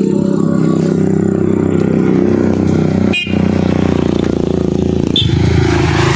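A vehicle engine running steadily, its note changing a little after five seconds in.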